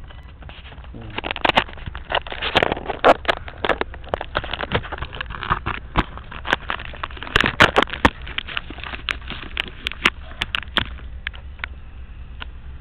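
Irregular sharp clicks and crackles from handling and rubbing on the camera's body, dense from about a second in and thinning out near the end, over a low steady rumble.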